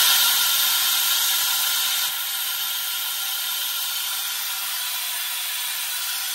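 Compressed air hissing steadily from a leaking quick release valve in a fire engine's front air brake system while the brake pedal is held down. The hiss eases slightly about two seconds in.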